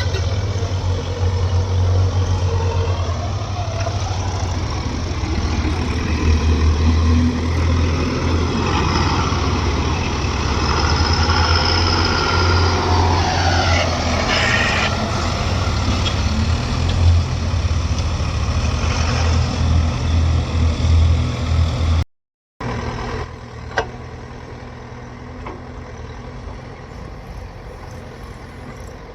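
Diesel engine of a JCB 3DX backhoe loader running steadily with a deep hum, a whine sliding down in pitch about halfway through. After a sudden cut about three-quarters of the way in, the engine sound goes on quieter.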